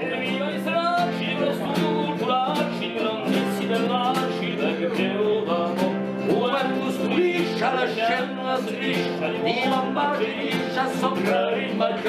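Men singing together to a plucked acoustic guitar.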